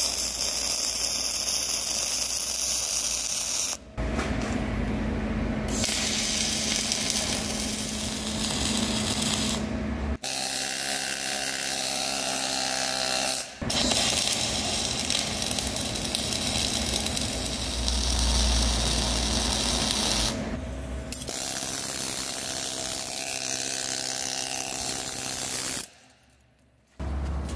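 MIG (wire-feed) welding on a steel hollow bar, the arc running in several long runs that stop and restart a few times.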